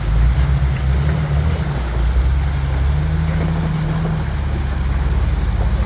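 Off-road vehicle's engine running at low speed, a deep steady drone that shifts slightly in pitch about three seconds in.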